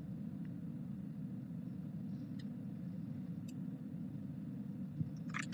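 Steady low hum of room noise with no speech, broken by a couple of faint clicks and a short louder sound just before the end.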